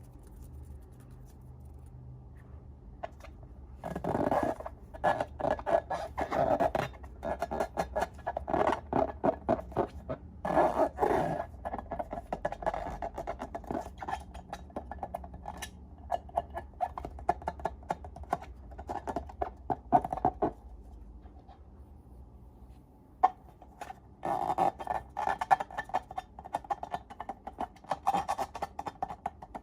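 Slime being squished and kneaded, giving dense sticky crackles and squelching clicks in two long stretches with a quieter pause between them.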